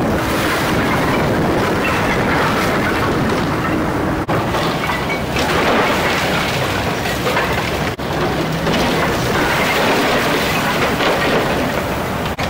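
Komatsu PC290LC excavator demolishing a wood-sided building: its bucket tearing into the walls, with timber and siding cracking and crashing down over the machine's diesel engine and the hiss of a dust-suppression water spray. The din is broken by brief drops about every four seconds.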